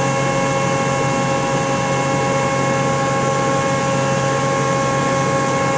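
Steady hum of a running Fanuc RoboDrill machining center, several constant tones over an even mechanical whir, with no change in pitch or level.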